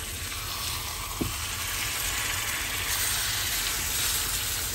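Chicken and potato curry sizzling in a frying pan as a wooden spatula stirs it, with one light knock about a second in.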